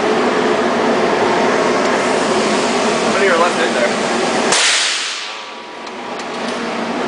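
A single shot from an AR-15 rifle in .223, about four and a half seconds in: a sharp crack with a fading hiss after it. It sounds over a steady rush of background noise, which drops away for a moment right after the shot.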